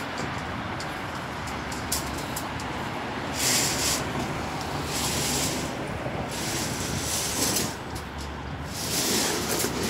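Outdoor city ambience: a steady low rumble with several surges of hiss a second or so long.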